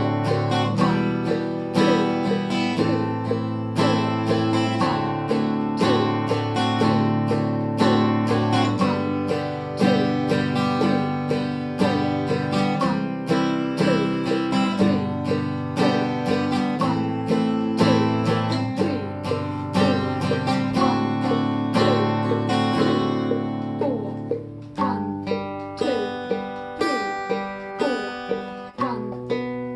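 Acoustic guitar strummed in a steady rhythm through a chord progression. About three-quarters of the way in, the strokes thin out and come further apart.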